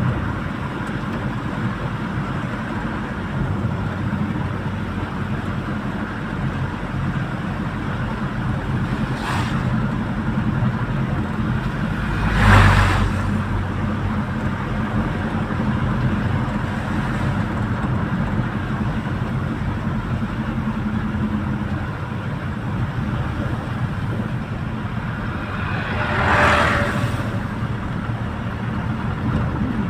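Road vehicle engine running steadily while driving, a low even hum with road noise. Three brief louder swells pass by, the loudest about twelve seconds in.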